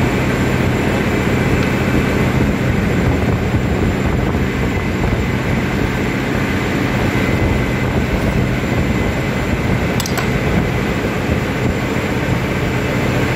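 Loud, steady machinery drone with a constant low hum and a thin high whine. One short sharp click about ten seconds in.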